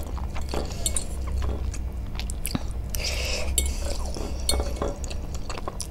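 Close-up chewing of spicy Korean noodles, with a few light clicks of a metal fork in a glass bowl.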